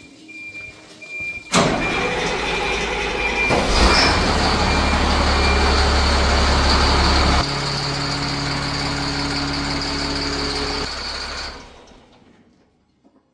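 A heavy machine's engine running loud and steady. It starts abruptly about a second and a half in, grows louder with a deep rumble and a high whine about four seconds in, drops back a little around seven seconds, and fades out near the end.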